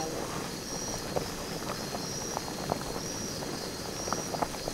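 Pot of prawn and fish soup at a rolling boil: a steady rushing bubbling with scattered small pops. A high insect chirp repeats about once a second behind it.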